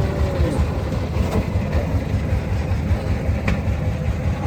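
A heavy vehicle's engine running with a steady low rumble, most likely a truck at the unloading.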